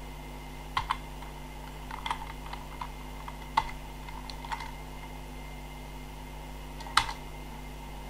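Computer keyboard typing: scattered, irregular keystrokes over a steady low hum, the loudest keystroke about seven seconds in.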